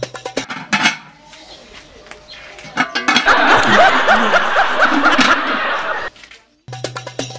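Laughter, a run of quickly repeated ha-ha bursts from about three seconds in that lasts about three seconds. Music plays briefly at the start and comes back near the end.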